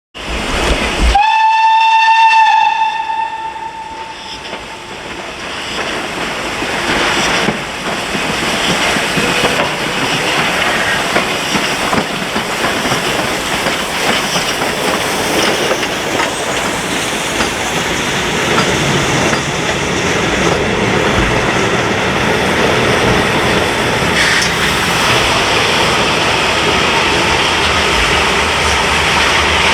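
Steam locomotive Pt47-65 with its train: one long, loud whistle blast about a second in. The whistle is followed by the steady noise of the train running past, building and then holding.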